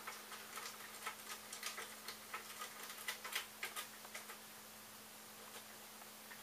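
Small, irregular clicks and ticks of a hand tool driving a screw into a plastic 3D-printer carriage part, with the screw being turned down onto a nut. The clicking stops about four seconds in, leaving only a faint steady hum.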